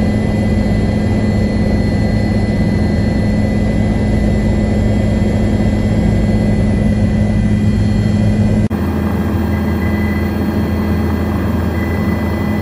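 Bell 430 helicopter hovering and descending to land, its twin turbines and rotor making a loud, steady drone with a low pulsing rotor tone. The sound changes abruptly about nine seconds in, where a second recording of the helicopter picks up with a deeper rotor tone.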